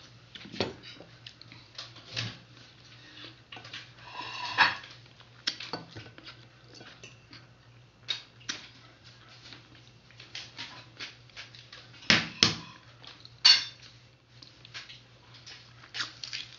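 Balut eggshells being cracked and peeled by hand over a ceramic plate: scattered small clicks and crackles of breaking shell, the loudest a cluster about twelve to thirteen and a half seconds in, with a sip from the opened egg. A brief high-pitched cry sounds about four and a half seconds in.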